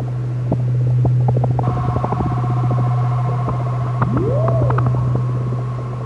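Eurorack modular synthesizer soundscape imitating deep-sea sounds: a steady low drone under fainter held higher tones, with scattered clicks throughout. A whale-like call glides up and back down about four seconds in.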